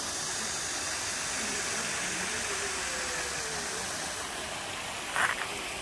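Small mountain stream running over rocks: a steady hiss of flowing water. A brief, louder sound cuts in near the end.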